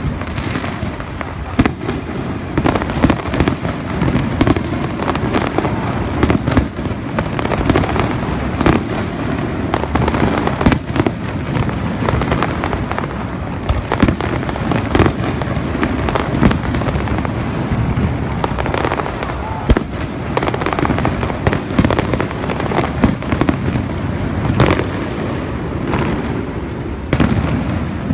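Fireworks display: a dense, unbroken run of bangs and crackling bursts, several shells a second.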